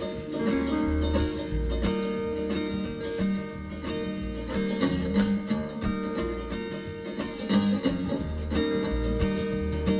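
Live country-folk band playing an instrumental passage: a banjo picking over acoustic guitar strumming, with low bass notes moving underneath.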